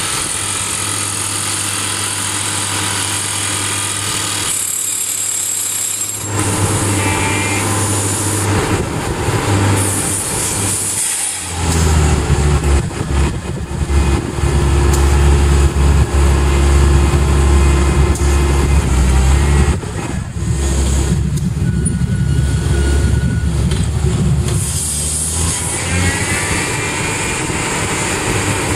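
SOOSAN STD14E top-hammer drill rig drilling rock, its TD45 hydraulic rock drill (drifter) hammering and rotating the drill string over the rig's engine. The sound grows louder and deeper about twelve seconds in and eases again near twenty seconds.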